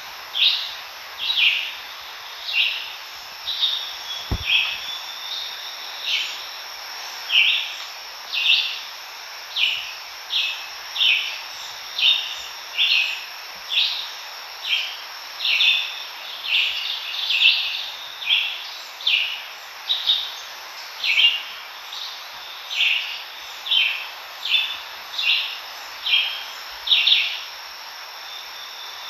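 Summer woodland animal sounds: a short, high call repeated steadily about one and a half times a second, over a constant high-pitched insect drone. A single low bump about four seconds in.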